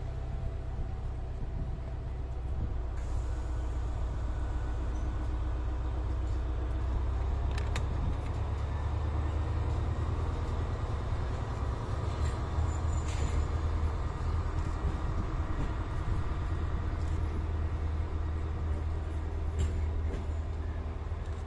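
Train running with a steady low rumble and a faint hum, with a few sharp clicks or clanks about a third of the way in and again just past the middle.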